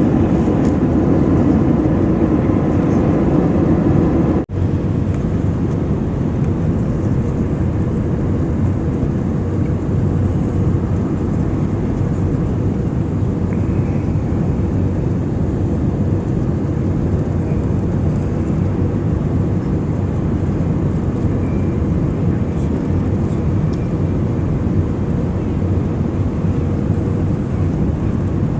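Airbus A319 cabin noise during landing: a steady rush of engines and airflow with a low hum. It is louder for the first four seconds or so, dips for a moment, then carries on evenly.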